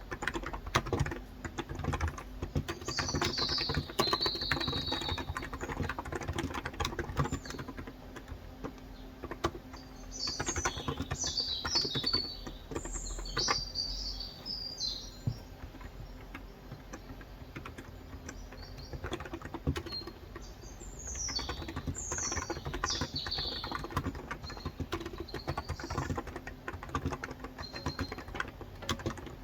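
Typing on a COX Endeavor electro-capacitive (topre-style) 35 g tenkeyless keyboard: runs of soft key clicks with short pauses. Birds chirp over it in three clusters of quick high chirps.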